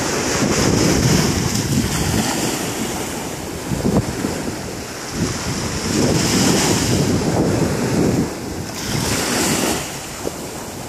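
Small surf waves washing up the beach, the hiss swelling and falling several times, under steady wind noise on the microphone.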